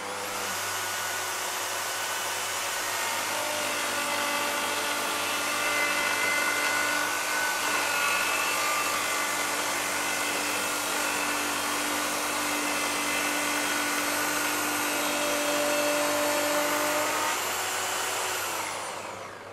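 Festool HK85 track saw fitted with a Festool groove cutter block, running at a steady pitch while it cuts a dado through plywood. About eighteen seconds in the motor is switched off and winds down, its pitch falling.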